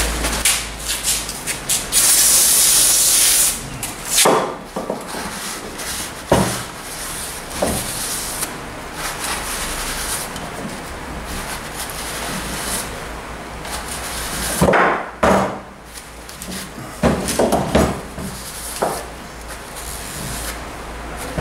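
A short, loud hiss of aerosol cleaner spray about two seconds in. Then a rag rubs and wipes inside a metal wheel hub's bearing seat, with a few sharp knocks of metal parts on the workbench.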